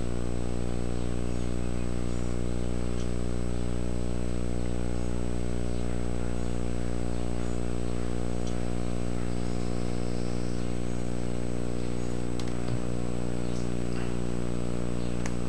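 Steady electrical hum with a stack of overtones, unchanging at a constant level, with a few faint ticks late on.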